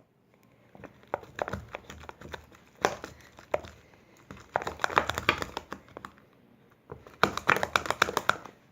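Sticky homemade slime of glue and liquid laundry detergent being stirred and worked, giving several bursts of wet crackling and clicking. The slime is still sticky and not fully activated by the detergent.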